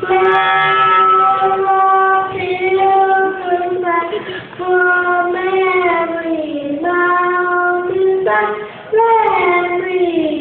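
A young girl singing solo in slow phrases of long held notes, with brief breaths between phrases and a few notes sliding downward.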